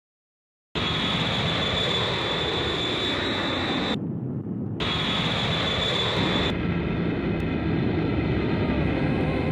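Loud, steady machine rumble with a high whine over it, like heavy machinery or an engine. It starts suddenly, breaks off abruptly about four seconds in and comes back under a second later. Near the middle the whine stops and a lower hum carries on.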